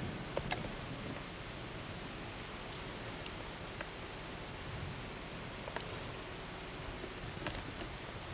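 A steady, evenly pulsing high-pitched trill like an insect's, with a few faint ticks.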